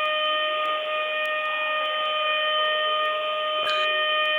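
Planet Fitness lunk alarm sounding a steady, unbroken siren tone, heard down a phone line with a thin, telephone-quality sound.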